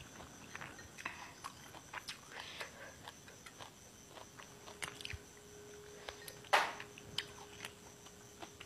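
Close-miked chewing of leafy vegetables dipped in chili dip, with scattered soft mouth clicks and one louder, noisier crunch or smack about six and a half seconds in.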